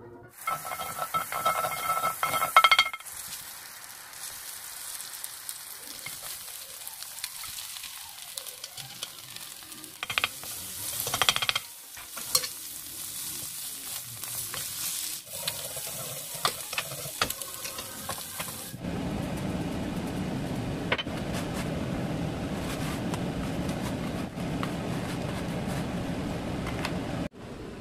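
Egg-soaked bread slices sizzling in a nonstick frying pan, with taps and scrapes of a wooden spatula. In the first few seconds chopsticks clink against a ceramic bowl, and over the last several seconds a steady, lower rubbing sound takes over.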